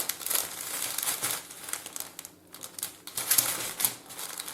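Small plastic bags of diamond painting drills crinkling and rustling as they are sorted through by hand, an irregular crackle with a short lull about halfway through.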